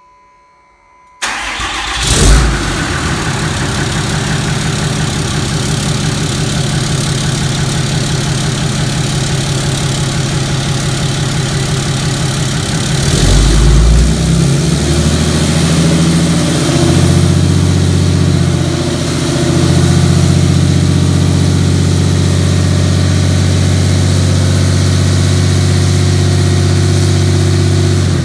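A 6.7 L Cummins inline-six turbo-diesel starts about a second in, with a brief flare, then idles steadily through a 5-inch straight-piped turbo-back exhaust that still has its original MBRP muffler. About halfway through, the engine speed and loudness rise and hold at the higher level.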